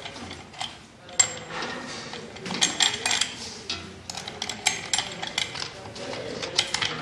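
Irregular metallic clicks and clinks of a steel hanging chain and its bolt being handled and fitted to a ceiling fan's suspension rod. There is one sharp knock about a second in, and the clicking grows busier from about halfway through.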